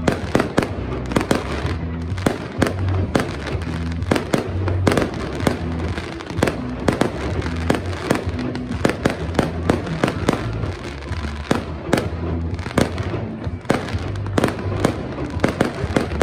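Fireworks display: a dense, irregular run of shell bursts and bangs, several a second, with crackle from glittering stars. Music with a steady bass plays underneath.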